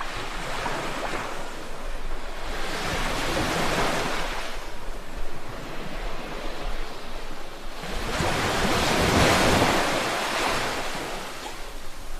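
Ocean surf on a beach: waves breaking and washing ashore, with wind. The sound swells twice, the second swell, about two-thirds of the way through, the louder.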